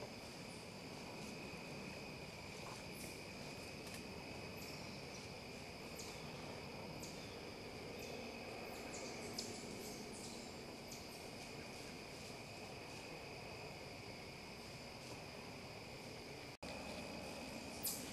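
Crickets calling as a steady, faint, high insect chorus, with scattered small ticks and chirps over it. There is a brief sharp sound near the end.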